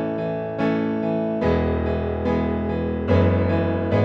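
Piano music, with a new chord struck a little more often than once a second and a deeper bass note coming in about a second and a half in.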